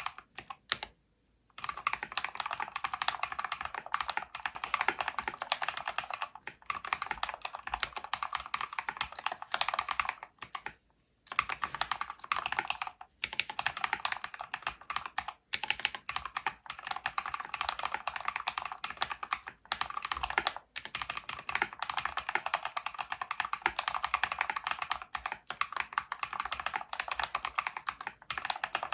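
Mechanical keyboard with Holy Panda tactile switches in a full aluminium case, typed on quickly and continuously. The typing breaks off briefly about a second in and again about eleven seconds in.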